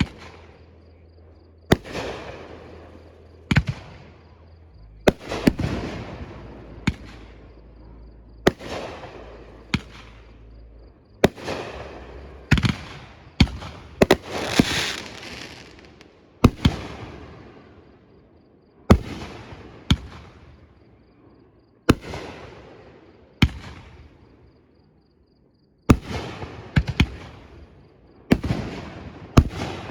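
Fireworks display: a steady succession of sharp bangs every second or two, each followed by a fading crackle and rumble. A louder, longer crackling burst comes about halfway through, and there is a brief lull near the end.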